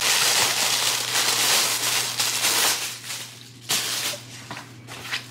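Clear plastic packaging bag crinkling loudly as it is handled and pulled off a fabric lunch bag, for about the first two and a half seconds. Softer rustling follows, with a sharp crackle a little before four seconds and a few more after it.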